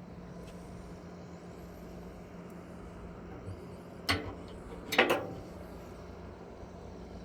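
Two sharp knocks about a second apart, the second the louder, over a steady low hum.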